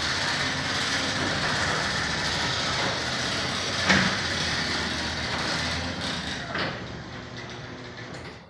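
LiftMaster garage door opener running as the garage door opens: a steady motor-and-door rumble with a single knock about four seconds in, dying away near the end as it stops.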